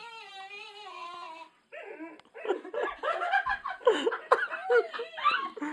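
A bagpipe holds one steady, slightly wavering reedy note, which stops about a second and a half in. Then loud, high-pitched shrieking laughter breaks out in gasps.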